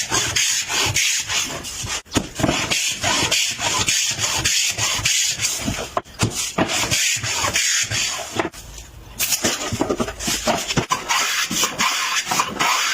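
Wood being worked by hand with repeated back-and-forth rubbing strokes, about two a second, like sanding or rasping.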